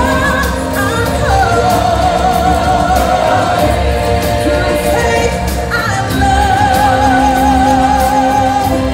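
Live show music: a singer holds two long notes with vibrato, one after the other, over a band and percussion backing with a steady beat.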